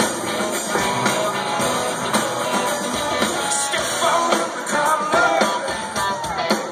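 Live rock band playing, recorded from the audience: drum kit keeping a steady beat under strummed guitars, with a gliding melody line coming in over the band about four seconds in.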